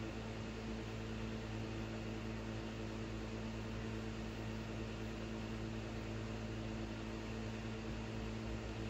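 Steady electrical hum with several constant low tones over an even hiss: room tone. No separate carving sounds stand out.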